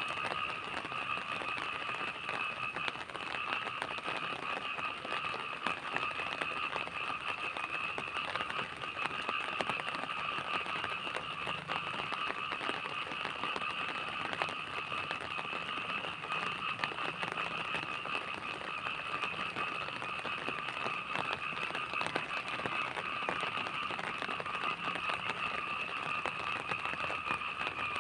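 Night rain falling as a dense, even crackle of drops, under a steady chorus of frogs calling at two high pitches without a break.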